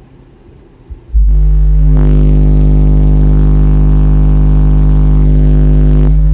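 A 50 Hz test tone played at full power through six Soundstream XXX 15-inch subwoofers driven by a Soundstream TXP1.18000D amplifier, measured at about 153 dB. The tone starts suddenly about a second in and holds as a loud, steady, buzzing drone with many overtones.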